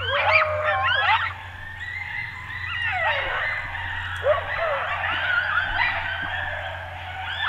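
A pack of coyotes yip-howling in chorus: many overlapping howls and yips rising and falling in pitch, loudest in the first second or so, then settling into a softer continuous group howl.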